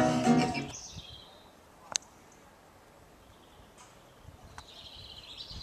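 The last notes of a folk song with acoustic guitar and singing die away, then faint bird chirps, with a sharp click about two seconds in.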